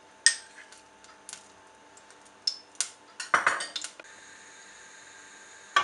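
Metal spoon clinking against a glass bowl and the rim of a nonstick pan while oil is spooned in: one sharp clink about a third of a second in, a few light taps, and a short run of clatters about three seconds in. A faint steady hiss follows near the end.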